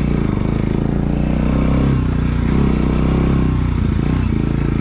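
Bajaj Pulsar NS200's single-cylinder four-stroke engine running steadily as the motorcycle is ridden along a rough dirt track, its note shifting slightly about four seconds in.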